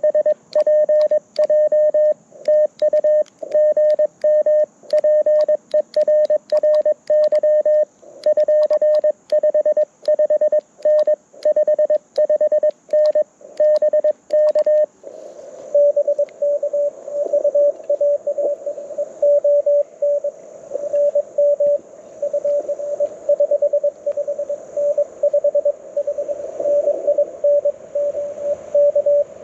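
Morse code tones near 600 Hz from a Mountain Topper MTR4B V2 CW transceiver heard through a small speaker. For the first half the keyed tone is clean, with silent gaps: the transceiver's sidetone of the operator's own sending. About halfway through, band hiss comes up and the tone carries on over it, weaker and uneven: a received station's reply.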